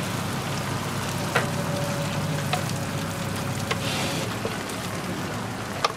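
Egg-and-shredded-cabbage omelet mixture sizzling in oil on a flat-top steel griddle, a steady frying hiss that flares briefly about four seconds in. A few sharp clicks of utensils against the metal break through it.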